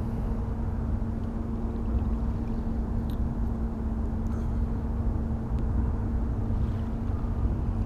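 Steady low drone of the cruise ship's engines carried across the river, a constant hum over a rumble of low noise.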